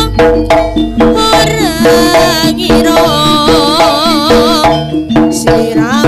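Live Javanese jaranan music: a gamelan group with kendang hand-drum strokes in a quick, busy rhythm under a wavering, trilling melody line.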